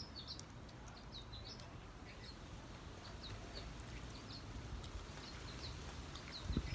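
Birds chirping softly: quick, thin, high chirps repeated throughout over a low steady rumble, with a dull thump near the end.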